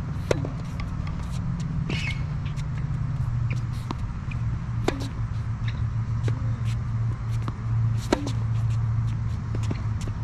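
Tennis rally on a hard court: sharp pops of racket strikes and ball bounces, with shoe scuffs, over a steady low drone.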